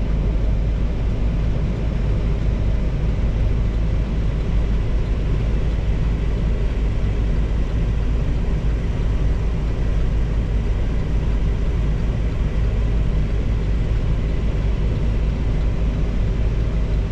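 Vehicle engine running steadily with a deep, even rumble.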